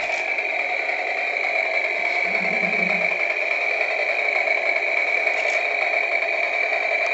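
Toy chainsaw running after a pull of its cord: a steady, even, high whirring buzz from its small motor.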